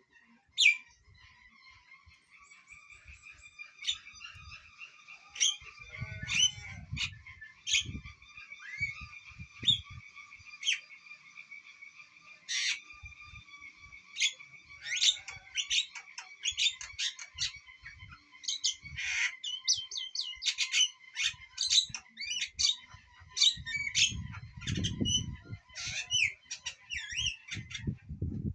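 Javan myna (jalak kebo) calling: a long run of short, harsh squawks and chattering notes, some spaced out and some in quick clusters, over a steady high-pitched tone.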